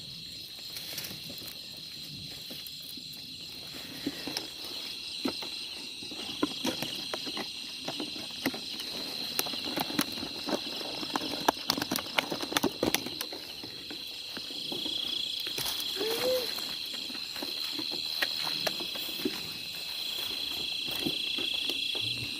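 Crickets calling in a steady high trill, joined by a second, slightly lower trill about two-thirds of the way through, over scattered rustling and clicking in dry grass and soil.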